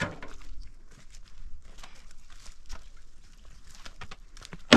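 Scattered light clicks and taps at an irregular pace, over a faint low background hum.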